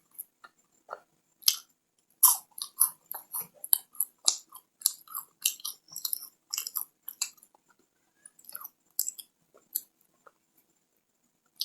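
Close-up chewing of a KitKat chocolate-covered wafer bar: quick, crisp crunches that come thick and fast, then thin out after about seven seconds.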